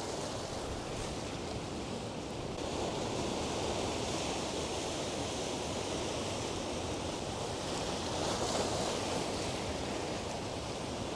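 Ocean surf breaking and washing around rocks and tide pools: a steady rushing that grows a little louder a couple of seconds in.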